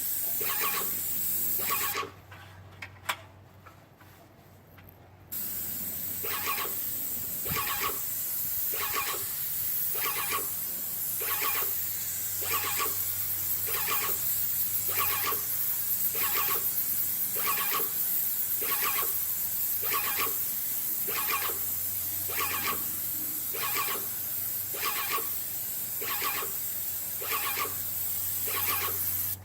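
Titan 440 airless paint sprayer spraying through a 211 tip: a steady high hiss from the spray tip, with the piston pump pulsing about one and a half times a second. Spraying stops for about three seconds near the start, then starts again and runs on.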